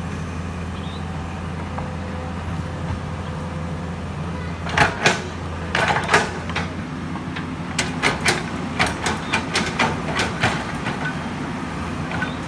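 Excavator's diesel engine running steadily, with a series of sharp knocks from about five seconds in as it works.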